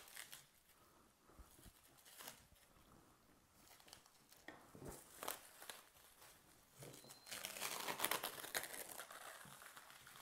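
Plastic cling film crinkling as it is stretched over a plastic soap mould and pressed down by gloved hands. Faint, scattered crackles at first, then denser, louder crinkling in the last few seconds.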